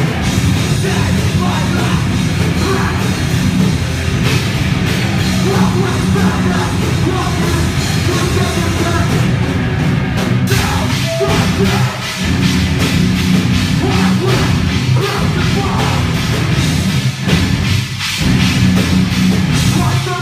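Hardcore band playing live and loud: distorted electric guitars, bass and drums with a vocalist on the microphone. The music breaks off briefly a couple of times in the second half.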